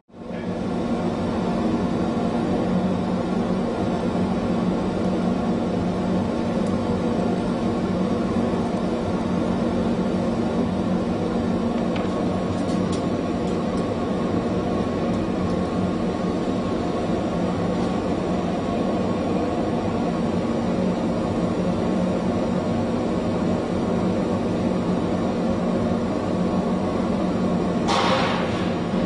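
Steady roar and hum of a glassworking furnace's burner and blowers, with a short hiss near the end.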